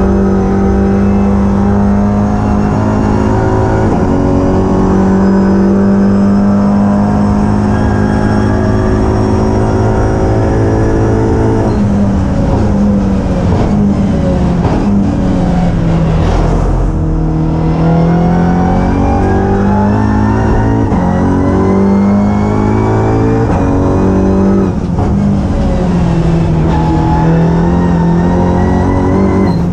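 Racing touring car's turbocharged four-cylinder engine heard from inside the cockpit at racing speed. It holds a steady high note for about twelve seconds, then drops in steps through downshifts under braking. After that it climbs again through quick upshifts, with a second dip and rise near the end.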